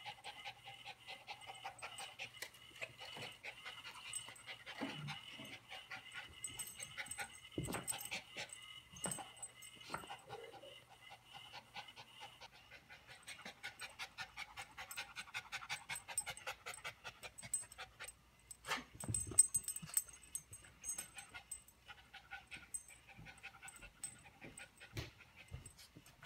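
Small dog panting in quick short puffs as it chases and sniffs at a laser dot on carpet.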